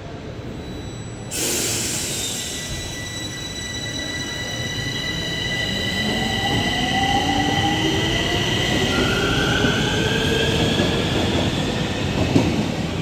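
Metro train moving along the platform: a rush of rail noise sets in suddenly just over a second in and grows louder, with high steady wheel squeal and several tones slowly gliding in pitch.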